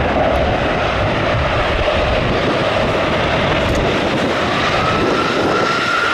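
A CF-18 Hornet's twin General Electric F404 turbofans run in a loud, steady jet roar as it lands. A higher whine rises in about four and a half seconds in and then holds.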